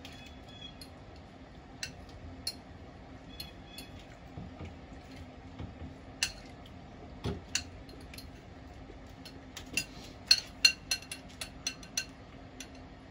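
Metal utensil stirring salsa in a glass bowl, with irregular clinks and scrapes against the glass and a quicker run of louder clinks about ten seconds in.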